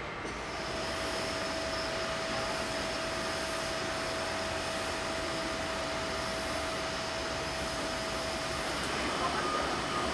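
Airport apron ambience: the steady whooshing drone of jet aircraft engines, with a thin constant whine that shifts near the end.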